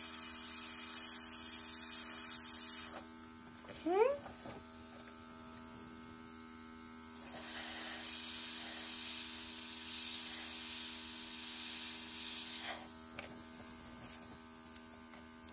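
Small airbrush makeup air compressor running with a steady hum, with the hiss of air spraying from the airbrush gun, stronger in spells near the start and through the middle.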